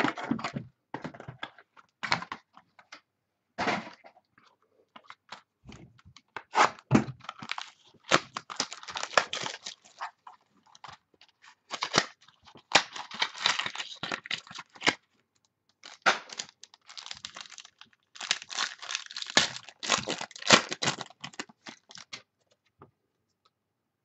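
Hands tearing open and crinkling the wrapping of a box and packs of 2012 Triple Threads football cards. The paper noise comes in irregular bursts, some sharp and some lasting a second or two, along with the rustle of cards being handled, and it stops shortly before the end.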